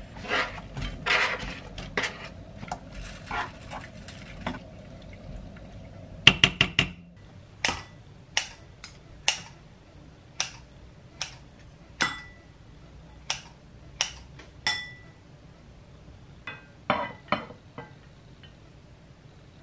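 A wooden spoon stirs and scrapes sauce in a ceramic-coated pan, with a few clinks. Next comes a quick run of sharp clicks, the loudest sounds here. Then kitchen scissors snip through a cooked chicken breast steak, one sharp click about every second, and a few lighter clinks of chopsticks and a bowl follow near the end.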